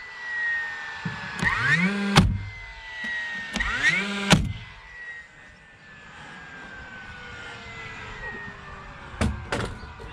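A power nailer driving nails into siding boards: twice a motor whirs up in pitch and ends in a sharp crack. Its whine then slowly falls away, and a couple of sharp knocks come near the end.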